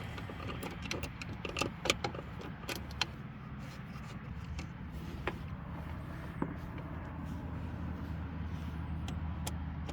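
Scattered sharp metallic clicks and clinks of a hand tool and wire terminals being worked loose from a bolt on a golf cart solenoid, thickest in the first three seconds, over a steady low rumble.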